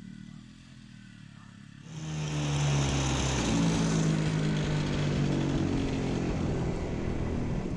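Old walk-behind rotary tiller's small engine running under load as its tines churn through the soil. The engine is faint at first, then much louder and closer from about two seconds in.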